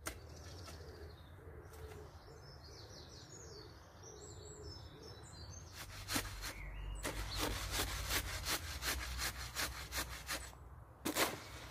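A shovel scraping and turning a gravelly concrete mix on a tarp: a run of quick, gritty scrapes that starts about six seconds in. Before that, birds chirp faintly.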